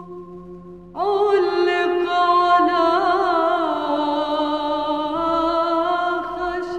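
Slow music of long held, chant-like notes. A new note comes in sharply about a second in and wavers in pitch for a while before settling.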